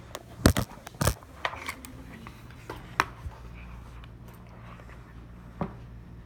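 A handful of sharp knocks and clicks at irregular intervals, the loudest about half a second and a second in, over a steady low hum.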